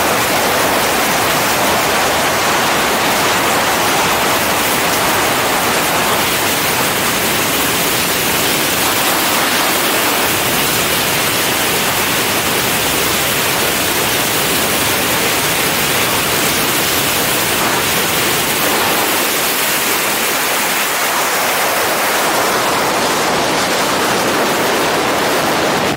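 Steady, loud rush of airflow over the camera's microphone during a wingsuit flight at full speed, an even hiss with no breaks.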